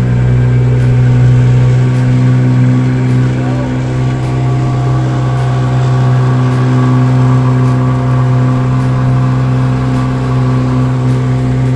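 Boat engine running steadily at an even speed, a constant drone with no change in pitch.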